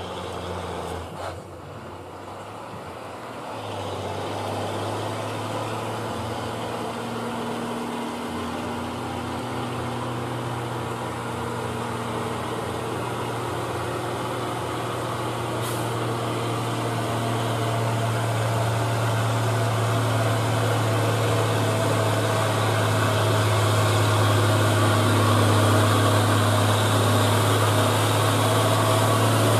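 Loaded Mitsubishi Fuso 220 PS dump truck's diesel engine pulling steadily up a steep grade. It is a low, steady drone that grows steadily louder as the truck comes closer.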